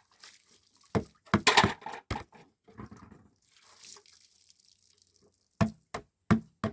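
A cluster of sharp knocks and clatter about a second in, then four separate sharp knocks near the end.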